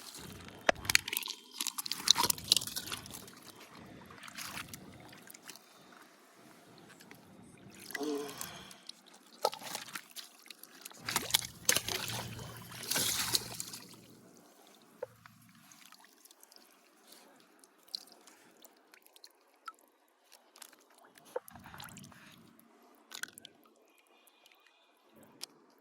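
Water splashing and sloshing in a few short spells, with scattered sharp clicks and knocks between quieter stretches.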